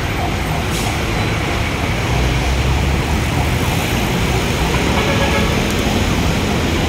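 Steady city street traffic noise, with vehicle engines running close by.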